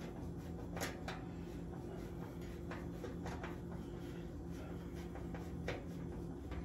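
A few faint metal clicks and scrapes as a screw and its nut are threaded by hand into a generator interlock's slide plate on a steel breaker panel, over a steady low hum.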